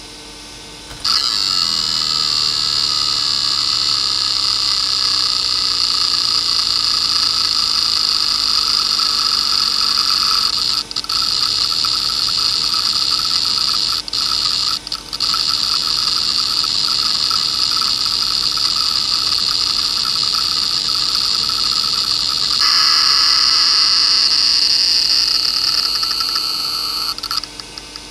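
Areal Technology A260 2.5-inch hard drive seeking nonstop under a seek benchmark: its head actuator makes a dense, high-pitched buzzing chatter over the low hum of the spindle. The chatter starts about a second in and breaks off briefly a few times. It turns louder and changes tone about three quarters of the way through as the drive does track-to-track seeks, then breaks up near the end.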